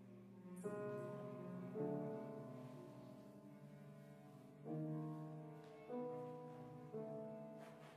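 Piano chords in a contemporary semi-improvised piece, struck five times at uneven intervals, each left to ring and fade.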